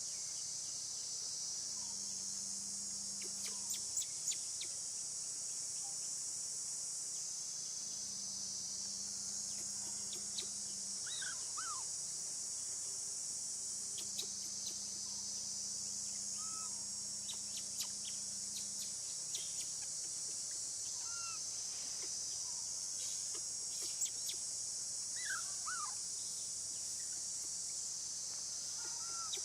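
A steady, high-pitched insect chorus drones throughout, with short bird chirps scattered across it and a few faint clicks.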